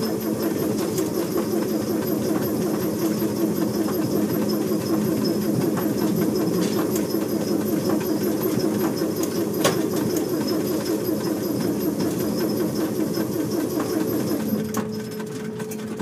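Petit Train Jaune electric train running, a steady motor hum under a fast, even clatter, easing off and growing quieter near the end.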